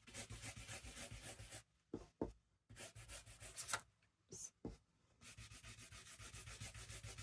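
An ink applicator scrubbing rapidly over a stencil on paper, in quick rubbing strokes. The strokes come in three runs, with short pauses and a few light taps between them.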